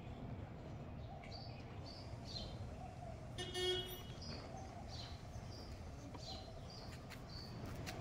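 Street ambience: a steady low rumble of distant traffic with small birds chirping repeatedly. A brief vehicle horn toot about three and a half seconds in is the loudest sound.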